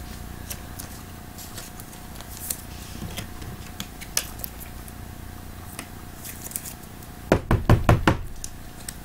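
Hands handling trading cards and cardboard card boxes on a tabletop: light scattered clicks and taps, then a quick run of about five loud knocks near the end.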